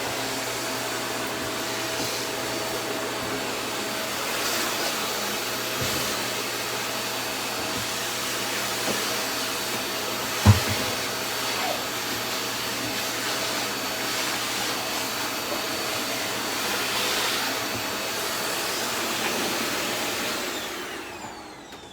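A vacuum cleaner runs with a steady hiss and motor hum, with a single knock about halfway through. Near the end it dies away, as if switched off and winding down.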